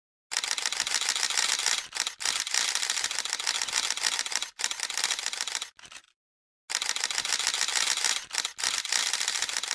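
A dense run of rapid clicking with a hiss, stopping briefly several times, with the longest break about six seconds in.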